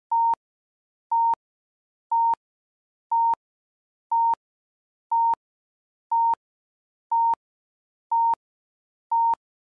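Countdown timer beeping: ten short, high beeps evenly spaced one a second, each ending in a faint click. It counts down the thinking time.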